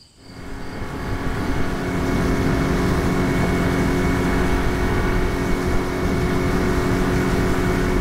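Small boat's outboard motor running steadily at cruising speed. It swells up over the first two seconds, then holds an even pitch.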